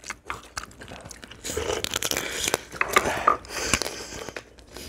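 Several people eating blue crab stew at the table: biting and sucking meat from pieces of crab shell and chewing, with scattered small clicks of chopsticks and dishes.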